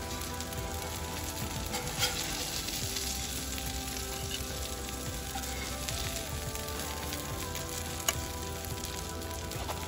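Breaded grouper fillets sizzling in hot oil in a cast iron skillet, with two sharp clicks of metal tongs against the pan, about two seconds in and again near the end.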